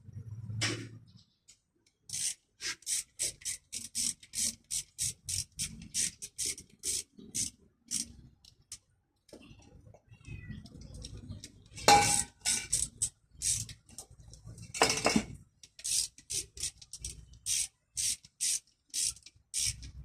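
Rhythmic scraping strokes, about two to three a second, in two runs, with two louder knocks between them.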